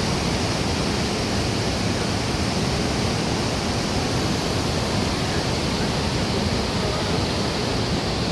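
Water rushing out through the Mettur Dam's 16-vent sluice gates: a steady, even rush of falling water with no change in level.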